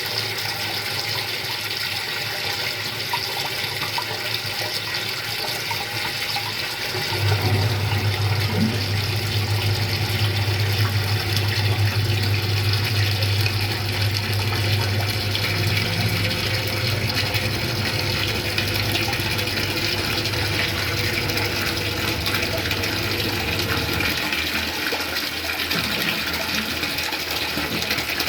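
Water rushing steadily as cistern overflow pours into a 220-litre PVC drum. About seven seconds in, a high-flow drainage pump starts with a low hum and runs for about seventeen seconds, lifting a batch of water out of the drum into the sewer, then cuts off.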